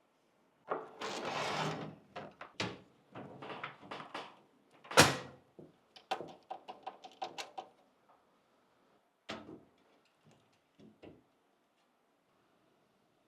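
PC hardware being handled and fitted: a scraping slide about a second in, a sharp knock near the middle that is the loudest sound, then a quick run of clicks and a few scattered taps.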